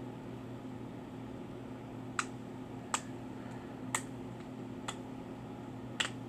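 Five light, sharp clicks about a second apart, from small phone parts and tools being handled while a smartphone is taken apart. A steady low electrical hum runs underneath.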